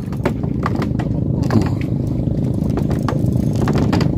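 A boat engine runs with a steady low drone, with scattered light clicks over it.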